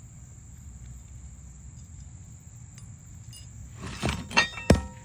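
Roofing hammer driving a nail into an asphalt shingle: three quick strikes with a metallic ring, starting about four seconds in.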